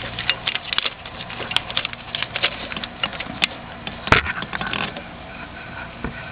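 Small clicks, taps and rattles from parts being handled in an engine bay, with one sharper knock about four seconds in.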